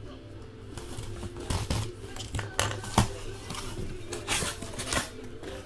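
A sealed case of trading-card boxes being cut and torn open: irregular scraping and tearing of tape and packaging, with a sharp click about three seconds in.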